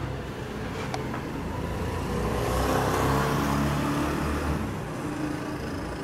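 A motor vehicle's engine running, growing louder about two seconds in and easing off again toward the end.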